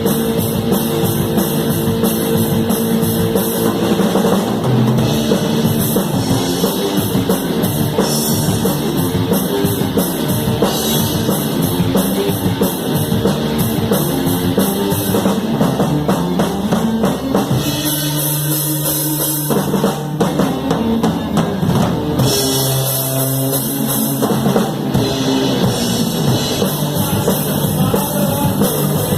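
Rock band playing live, heard close to the drum kit: a steady run of drum hits with sustained notes underneath. Cymbals ring out brightly about two-thirds of the way through.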